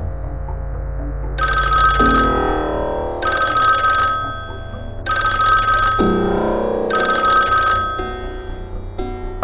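Mobile phone ringing: four electronic rings, each about a second long with short gaps between, over a low background music drone.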